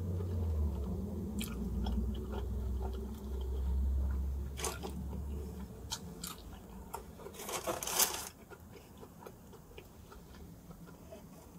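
Biting and chewing pepperoni pizza, with scattered crisp crunches of the crust and a louder burst of crunching about eight seconds in. A low rumble runs under the first six seconds.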